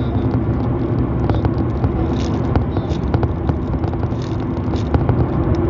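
Steady low drone of a car heard from inside the cabin, with scattered short crinkles and clicks from a plastic bag being handled close to the microphone.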